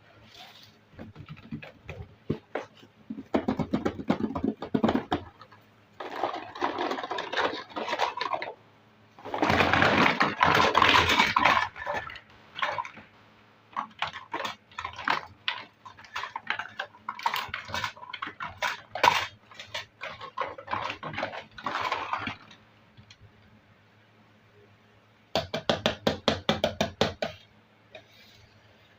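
Hands unboxing and handling a miniature plastic toy kitchen set. Packaging crinkles and small plastic pieces click and rattle in bursts of a second or two with short pauses between them; the loudest crinkling comes about ten seconds in, and a quick run of clicks comes near the end.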